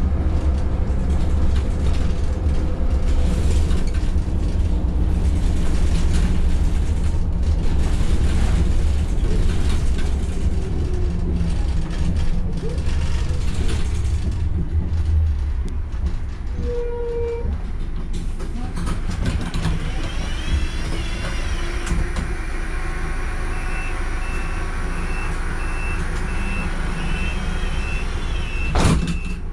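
Van Hool A300 city bus heard from inside: the engine and road noise of driving, easing off after about half the time as the bus slows. A brief single tone sounds a little past halfway, then a run of evenly spaced high beeps over the last several seconds, and a short burst of noise near the end.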